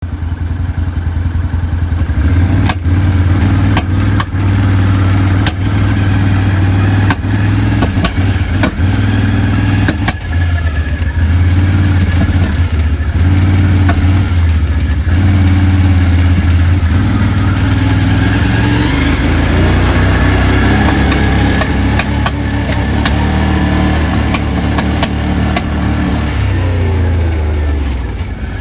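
Quad bike (ATV) engine running at idle, revved up about two-thirds of the way through and dropping back near the end. Repeated sharp clicks and knocks sound over it. This is the noise at the gear-shift lever of a quad that won't drive, whose cause the owner doesn't know.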